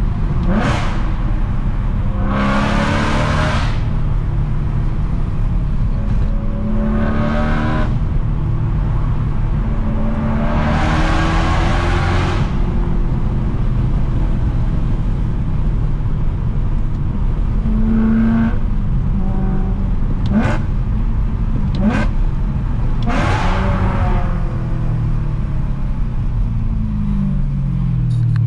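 BMW E92 M3's S65 V8 running through a titanium cat-back exhaust while driving: a steady low drone broken by several short louder surges as the revs climb, with the revs falling away near the end.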